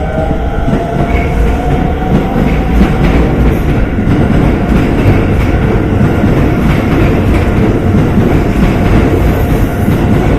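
Electric train passing close by over a level crossing, its wheels clacking steadily over the rail joints. A rising motor whine is heard in the first second.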